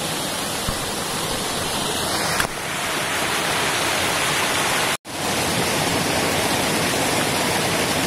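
Stream water pouring over a small concrete check dam spillway and cascading onto rocks: a steady rushing. The sound cuts out for an instant about five seconds in.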